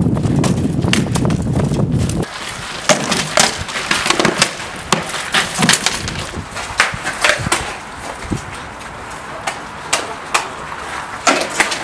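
Wind rumbling on the microphone, cut off abruptly about two seconds in. Then a run of sharp, irregular knocks and cracks: rattan weapons striking shields and armour in armoured sparring.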